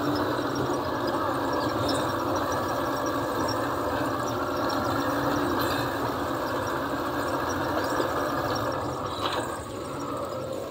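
Jeep engine running as the jeep drives over a rough, rocky dirt track, heard from inside the vehicle; the steady noise eases a little near the end.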